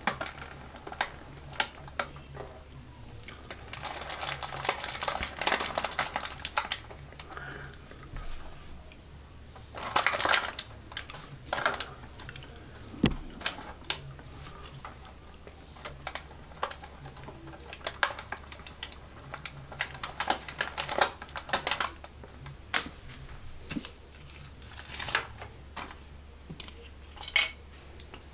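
Lego Technic pneumatic garbage truck's rear packer mechanism working: plastic parts clicking and rattling irregularly as the packer blade sweeps plastic wrappers into the hopper, with a few louder rushes of noise lasting a second or two.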